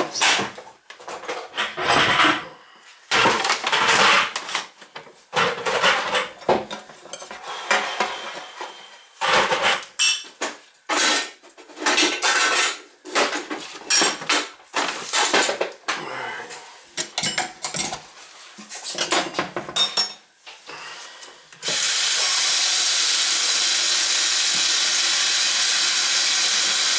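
Loose metal parts of an old basket strainer clattering and scraping against a stainless steel sink as they are gathered up. About three-quarters of the way through, the faucet comes on and water runs steadily onto the new basket strainer and down the drain, the start of filling the sink to test the new strainer for leaks.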